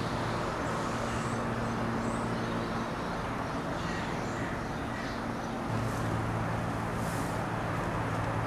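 Steady low mechanical hum over a broad rushing noise, the hum growing a little louder about two-thirds of the way through.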